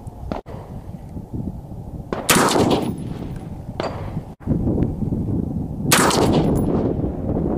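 Two rifle shots from a Diamondback AR-15 pistol with a 10.5-inch barrel, firing .223 rounds about three and a half seconds apart. Each sharp crack trails off in a long echo.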